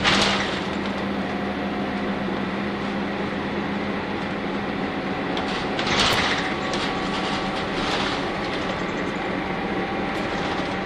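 A Nissan Diesel UA city bus with a PU6 natural-gas engine running along the road, with engine and road noise heard from inside the cabin. A steady hum weakens about four seconds in, and there are brief rushes of noise at the start and about six seconds in.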